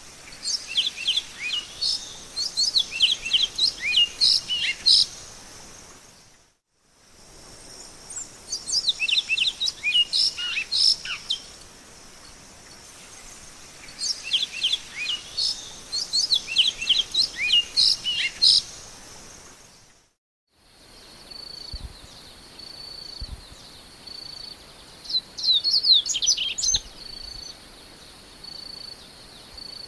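A songbird singing in three bouts of rapid, varied high chirping notes, each a few seconds long with pauses between. After a brief break about twenty seconds in, the sound changes to a steady, high pulsing tone with a shorter burst of song near the end.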